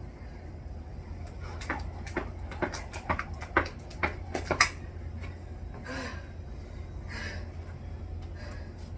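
A jump rope slapping the ground in a quick, slightly uneven run of sharp clicks for about three seconds, followed by three heavy, hard-worked breaths over a steady low rumble.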